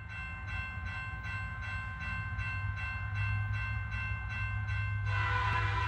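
Train running: a steady low rumble and a rhythmic beat about three times a second. About five seconds in, a louder chord of many steady tones joins it, like a train horn.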